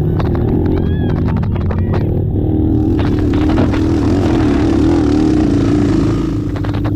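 Racing ATV engines running, with one revving up and growing loud in a rushing noise from about three seconds in until just before the end. Sharp ticks and clatter sound throughout.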